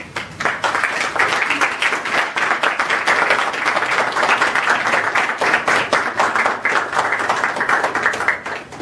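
Audience applauding: dense, steady clapping of many hands that cuts off suddenly near the end.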